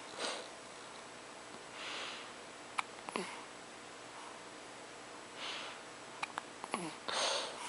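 Quiet, held-in hiccups: a short sharp hic with a quick falling squeak at the start, about three seconds in and again just before seven seconds. Soft breaths through the nose fall between them.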